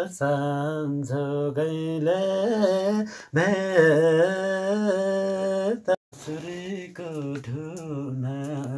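A man singing a Nepali song solo and unaccompanied, in long held notes that bend and waver in pitch, with short breaks between phrases about three and six seconds in.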